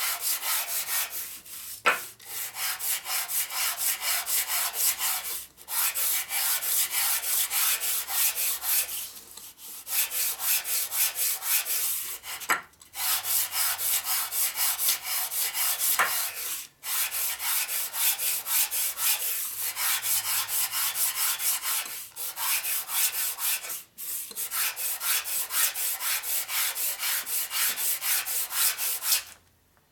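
Harley knucklehead main oil pump body being hand-sanded on sandpaper laid flat on a steel table: quick rubbing strokes, about three a second, with brief breaks every few seconds. The uneven scrape comes from high spots on the pump face digging into the paper.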